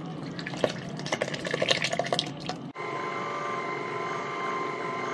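Hot oily liquid poured from a saucepan into a stainless steel bowl of tapioca flour, splashing irregularly. About two and a half seconds in it gives way abruptly to a stand mixer running with a steady hum, its wire whisk beating the dough.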